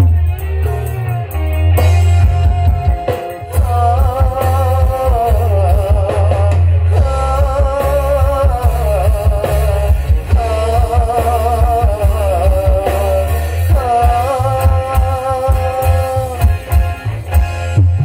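Music played loud through a large sound system of line-array speakers and subwoofer boxes during a sound check: very heavy bass under a wavering, vibrato-laden melody line.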